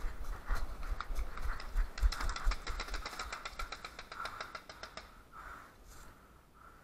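A quick even string of paintball marker shots, several a second, for about three seconds in the middle, over the crunch of footsteps through dry leaves and thuds of the moving camera.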